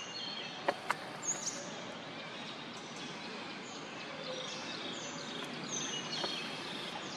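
Birds chirping in short, high calls repeated throughout, over a steady background hiss, with two sharp clicks a little under a second in.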